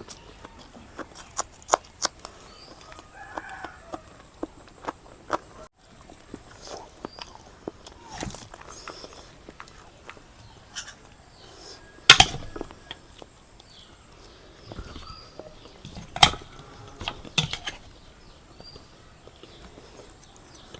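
Close-up eating sounds of a person chewing a meal of chicken biryani and salad: a steady run of wet mouth clicks and crunches. A few louder, sharp snaps come about 12 and 16 seconds in.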